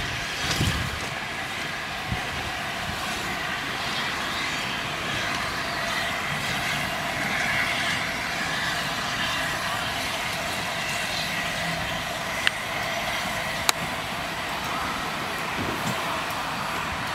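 Steam-hauled passenger train moving slowly past, coaches first, giving a steady hiss with no audible exhaust beat; two sharp clicks come a little over two-thirds of the way through.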